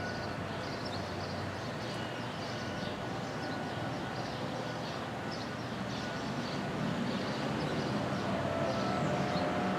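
Federal Thunderbolt 1000 civil defense siren sounding at a distance: its steady tone swells and fades as the rotating head turns, faint against a steady rumbling noise, with light high chirps above.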